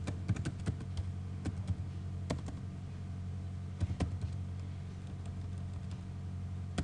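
Computer keyboard keys clicking as text is typed: irregular single keystrokes with short pauses between them, over a steady low hum.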